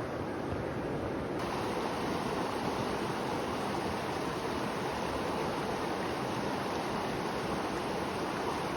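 Mountain river rushing steadily, a constant hiss of flowing water that grows slightly brighter about a second and a half in.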